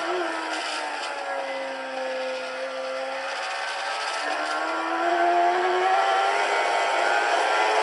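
Onboard recording of a racing motorcycle's engine played back through a laptop: the revs drop over the first couple of seconds as it slows, then climb and get louder as it accelerates again from about four seconds in.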